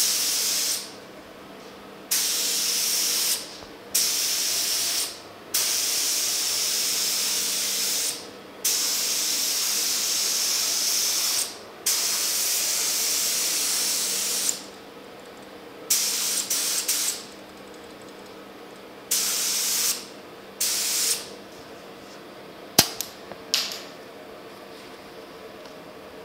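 Gravity-feed paint spray gun laying a second coat of polyester primer: a loud hiss of air and paint each time the trigger is pulled, about nine passes broken by short gaps, long ones first and shorter ones later. A single sharp click near the end.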